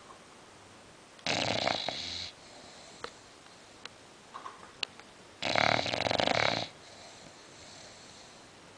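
English bulldog snoring in her sleep: two loud snores about four seconds apart, each about a second long.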